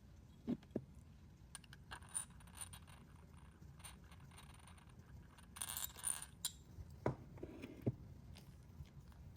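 Small clicks, taps and light scrapes of beads and their packaging being handled on a tabletop, with a brief rustle a little past halfway.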